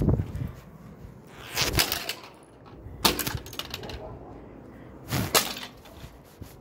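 Broken plastic toy-iron fragments cracking and scraping underfoot on concrete: four separate crunches a second or two apart, the sharpest about three seconds in.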